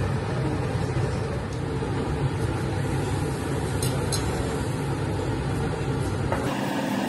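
Steady low rumble with a hiss of kitchen background noise, with two short sharp clicks about four seconds in.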